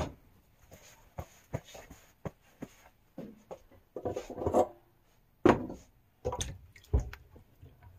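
Scattered knocks, clicks and rubbing as things are handled and set down on a kitchen counter, with a louder clatter about four seconds in and a sharp knock about a second later.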